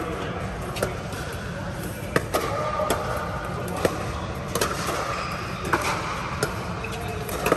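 Pickleball rally: a hard plastic ball popping off paddles in sharp, irregular knocks about once a second, with voices talking in the background.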